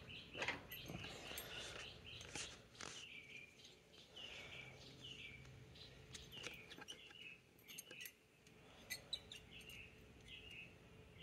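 Faint birds chirping in short repeated calls, with a few light clicks and taps, mostly in the first three seconds and twice more about nine seconds in.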